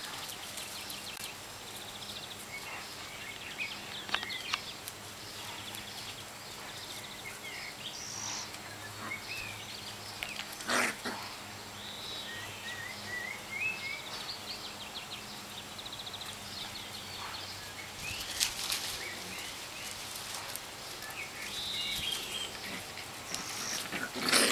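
Cavalon puppies playing and scuffling on grass, with birds chirping in the background. A sharp knock stands out about eleven seconds in.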